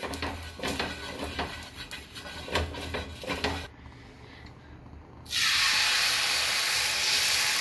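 Hand rubbing oil over a hot dosa tawa in quick strokes, about three a second, to grease it. After a short lull, appam batter poured from a ladle hits the hot tawa, and a loud, steady sizzle starts about five seconds in.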